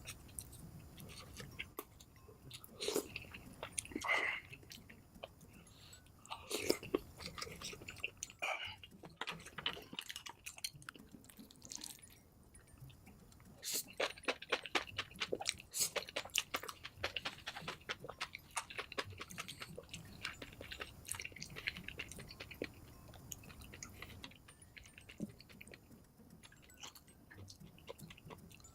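Close-up eating sounds of a mukbang, sped up to double speed: chewing and biting, with a dense run of crisp clicks about halfway through.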